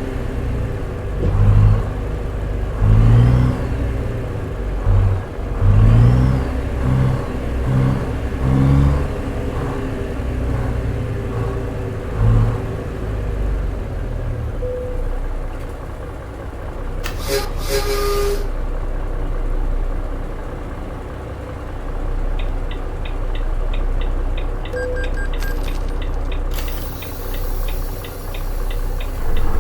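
A truck engine accelerates, its pitch climbing again and again through several gear changes during the first dozen seconds, then runs steadily at road speed. About 17 seconds in there is one short loud burst, and from about 22 seconds an even, rapid ticking runs alongside the engine.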